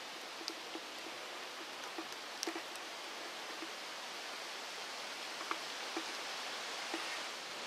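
Steady outdoor background hiss with scattered small ticks and light rustles.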